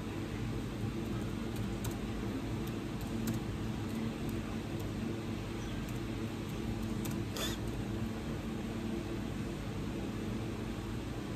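Steady low hum with hiss, as from a running fan or appliance in the room, with a few faint ticks and one brief scratchy sound about seven seconds in.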